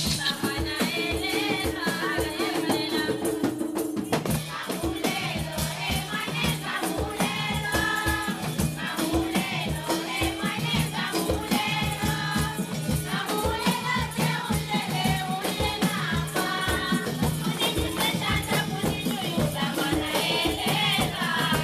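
Group of women singing together to a quick, steady beat of hand-struck tambourines.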